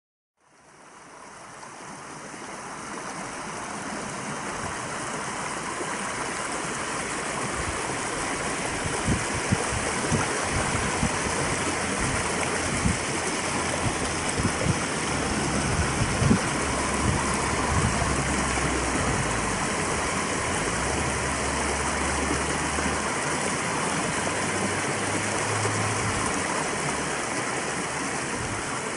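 Running stream water: a steady rushing hiss that fades in over the first few seconds. It is broken by scattered low thumps and rumbles from about a third of the way in.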